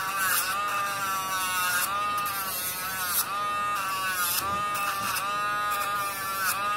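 Dremel rotary tool running with a steady whine as it grinds down a dog's toenails; its pitch dips briefly each time it is pressed to a nail, with short rasps of grinding.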